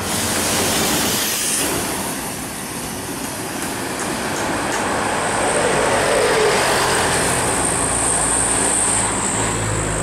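Large tour buses driving past close by: engine and tyre noise that swells, eases around three seconds in, and swells again as the next bus approaches.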